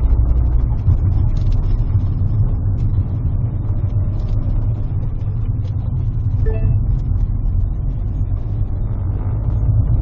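Car engine and road noise heard from inside the cabin while driving: a steady low rumble.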